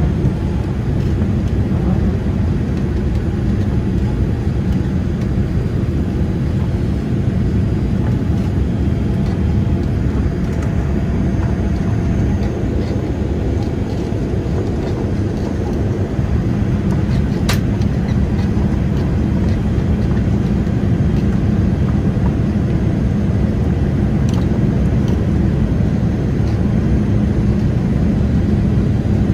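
Cabin noise aboard a Boeing 787-8 airliner: a steady low rumble of engines and airflow that holds even throughout.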